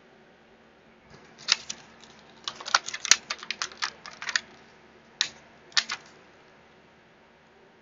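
Small hard-plastic dewdrop ink pads clicking and clacking as they are handled: a quick irregular run of clicks in the middle, then two single clicks near the end.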